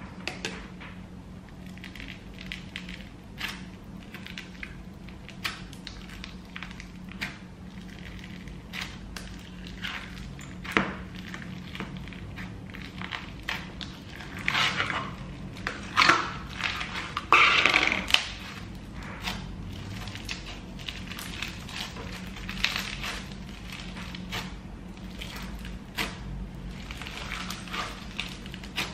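Crunchy slime being squeezed and stretched by hand, giving many small crackling pops and clicks, with a louder run of crunching about halfway through. A steady low hum runs underneath.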